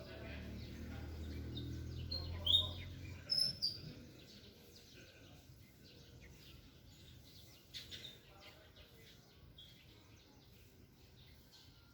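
Small birds chirping: a handful of short, high calls, most of them in the first four seconds and one more near eight seconds, over a low rumble that fades out about three seconds in.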